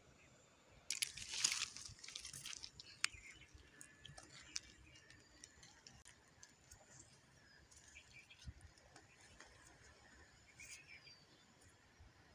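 Handling noise as river pebbles are picked up in the hand: a short rustling crunch about a second in, followed by a few sharp clicks, then only faint small ticks.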